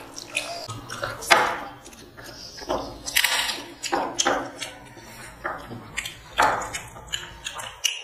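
People eating mutton biryani by hand: irregular wet chewing and squishing of rice and meat, with occasional light clinks against a steel plate.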